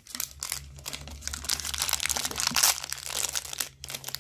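Crinkling and rustling of a metallic foil doll wrapper being handled and pulled open, an irregular crackle that pauses briefly near the end.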